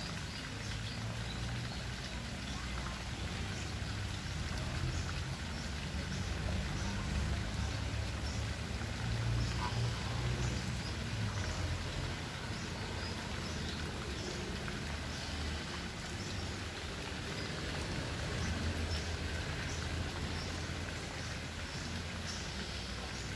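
Outdoor ambience: a steady low rumble with faint, scattered high ticks and chirps; no flamingo calls stand out.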